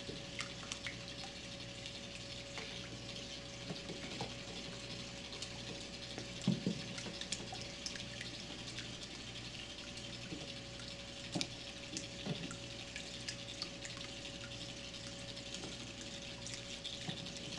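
Battery-powered Weasel Ball toys churning in water: continuous light splashing and dripping with scattered small splashes and clicks, one stronger splash about six seconds in, over a steady hum.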